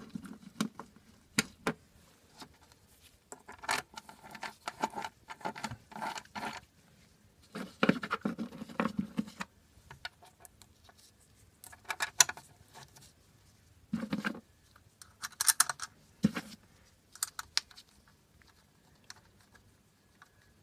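Metal belt cover of a Yanmar 3YM30 diesel being handled and fitted back on by hand, with its bolts: scattered clicks, scrapes and a few dull knocks in short clusters, with quiet gaps of a second or two between them.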